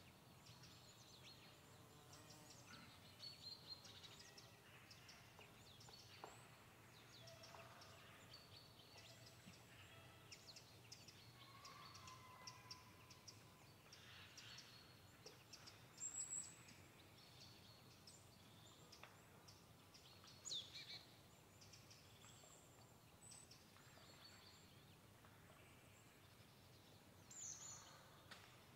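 Quiet pine-forest ambience: scattered faint, high-pitched chirps and calls of small birds, with a few louder calls midway and near the end, over a faint steady low hum.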